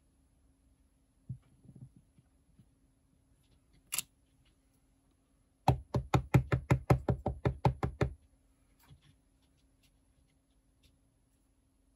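Wood-mounted rubber stamp being pounced up and down in a quick run of about fifteen knocks, roughly six a second, midway through. Earlier there is a single thump and a sharp click.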